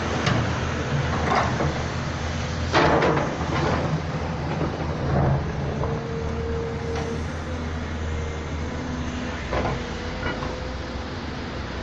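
Large hydraulic excavator's diesel engine running steadily, with several knocks from the machine at work, the loudest about three seconds in, and a brief held whine around the middle.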